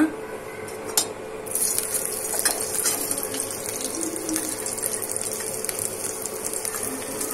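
Chopped garlic sizzling in hot oil in an iron kadai: a steady hiss that starts about a second and a half in, after a single knock.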